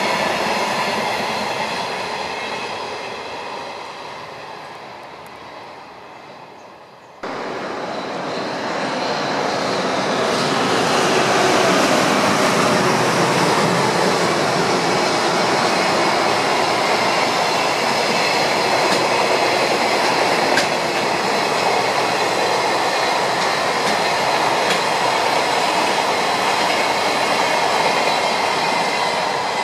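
Container freight trains' wagons rolling past on the rails with a steady noise. The first fades as it draws away, then about seven seconds in an abrupt cut brings a second, louder freight train passing close, with a thin high whine from the wheels over the rolling noise.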